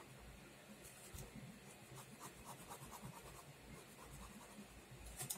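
Faint scratching of a pen drawing short strokes on paper, with one sharper stroke near the end.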